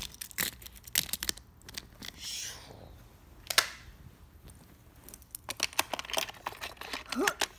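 Plastic Hot Wheels track pieces and die-cast toy cars being picked up and handled: a string of sharp clicks and clacks, the loudest about three and a half seconds in, with a brief rustle a little after two seconds.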